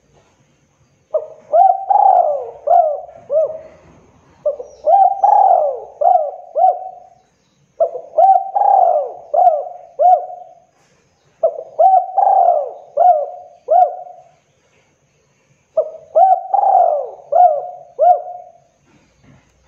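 Spotted dove (tekukur) cooing: five phrases of several notes each, one every three to four seconds.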